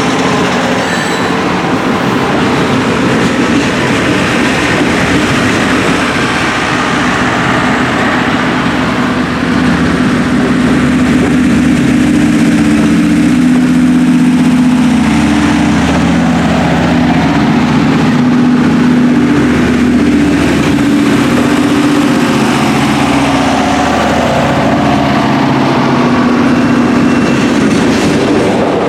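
A diesel-hauled train passing: the locomotive's engine runs steadily under the rolling noise of the cars on the rails, growing louder in the middle of the passage and easing off toward the end.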